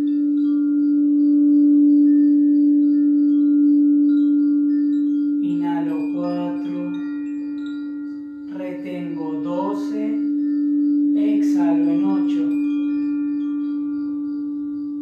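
Crystal singing bowl ringing one steady tone that swells and slowly fades toward the end. A man's voice sounds three short phrases over it in the middle.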